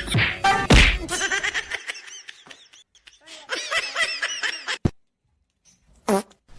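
High-pitched laughter in quick repeated bursts that cuts off abruptly about five seconds in, followed after a short pause by one brief burst of sound.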